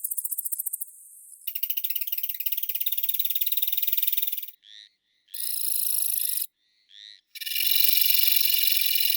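Songs of several katydid species heard one after another with abrupt cuts between them. A fast high trill stops about a second in, a loud pulsed buzzing song follows for about three seconds, then a few short chirps and a one-second burst, and from about halfway through the last second a steady high buzzing song starts and carries on.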